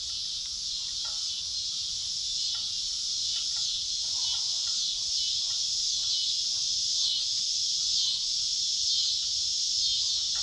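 A steady, high-pitched chorus of trilling insects, likely crickets, with a few faint scattered ticks.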